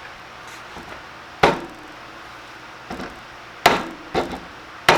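Hammer blows driving a pin into the brake assembly: four sharp metallic knocks, irregularly spaced, plus a lighter tap about three seconds in.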